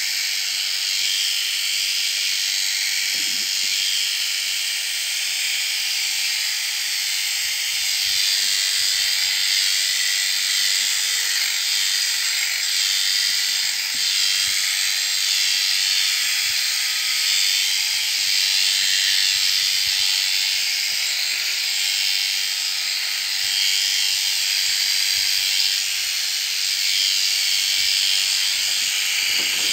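Electric sheep-shearing handpiece running steadily, the cutter buzzing through a ram lamb's fleece.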